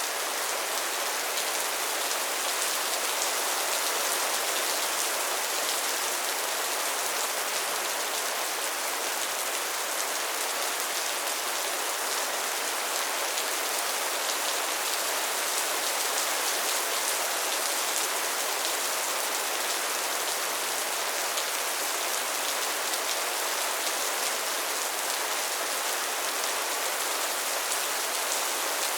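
Steady rain: an even, unbroken hiss of falling drops with many fine drop ticks, with no thunder.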